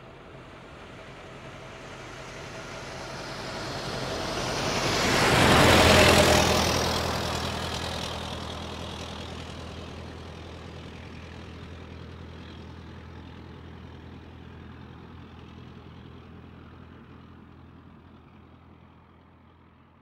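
Vintage car driving past: the engine grows louder as it approaches, passes about six seconds in, then slowly fades away into the distance.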